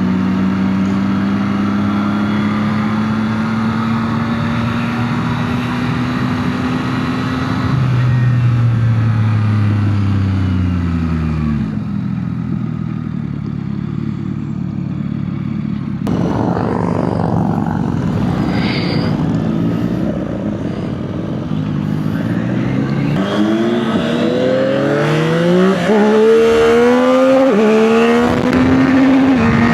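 Yamaha MT-09 SP's three-cylinder engine through its stock exhaust on the move: a steady note at first, then revs falling away as the bike slows. In the second half it accelerates, the pitch climbing and dropping sharply at three or four upshifts.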